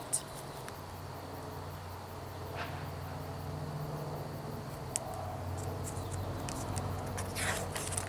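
Steady low hum in the background. Near the end, the paper of a picture book rustles briefly as its page is turned.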